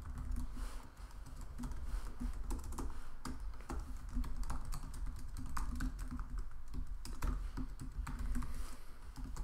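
Typing on a computer keyboard: an irregular run of quick key clicks as code is entered.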